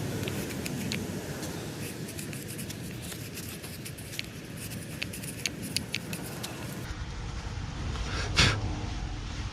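Scattered light clicks and scrapes of hand work on a car, with one louder knock about eight and a half seconds in.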